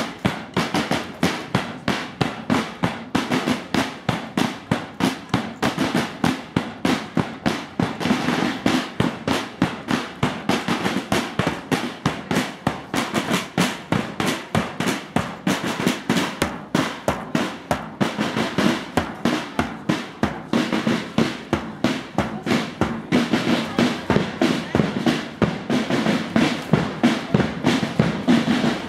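Marching drum band of bass drum and snare drums playing a steady, quick marching beat, with rapid snare strokes over regular bass drum hits.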